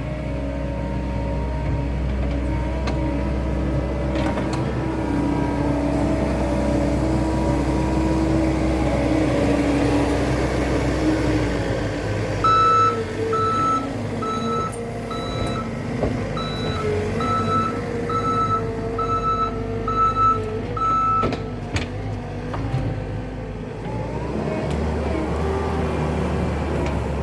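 Skid steer engine running and working under load, its pitch rising and falling. From about halfway through, the reversing alarm beeps steadily for several seconds, about one and a half beeps a second, and it starts again right at the end. A few sharp knocks come through as well.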